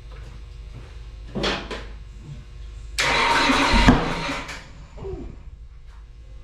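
Dodge R5P7 NASCAR small-block V8 being cranked on the dyno in a start attempt. There are two short bursts, then a loud burst of about a second and a half that ends in a low thump, and the engine does not catch. The ignition problem has not yet been sorted out.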